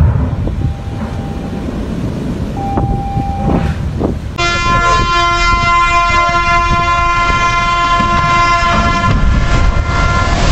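Rumbling noise, then from about four seconds in a ship's horn sounding one long steady blast as a ship is side-launched down the ways. Near the end, the rush of water from the launch splash rises as the horn fades.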